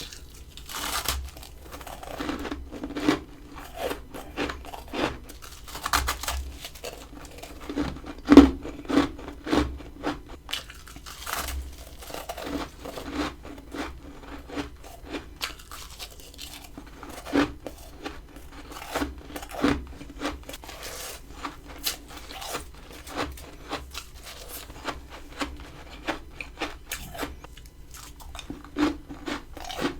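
Close-up bites and crunching of frozen freezer frost and ice, a rapid irregular run of crisp crackling crunches with a few louder bites.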